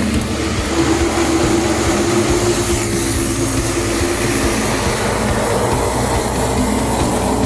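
Wind rushing over the microphone and road noise from a Kaabo Wolf Warrior electric kick scooter riding at about 45–50 km/h, with a steady hum underneath that thins out about halfway through.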